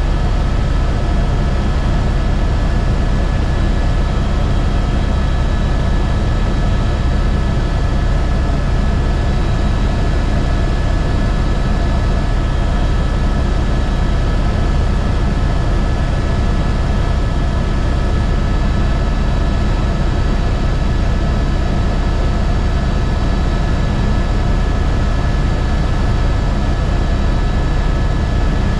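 Airbus H125 helicopter running steadily in flight, its single turboshaft engine and rotor making a constant loud low rumble with several steady high whining tones over it.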